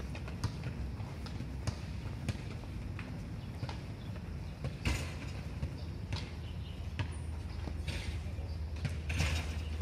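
Scattered light footsteps and taps on a rubber running track, irregular sharp clicks over a steady low rumble.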